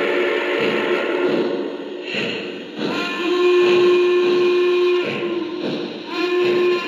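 Lionel Visionline Class A model steam locomotive's onboard sound system blowing its steam whistle: one long blast of about two seconds, then a short toot near the end, over the continuous hiss and rumble of the running locomotive.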